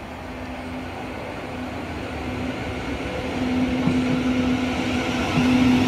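South Western Railway Class 707 electric multiple unit drawing into the platform, its rail and running noise growing steadily louder as it nears, with a steady low electric hum.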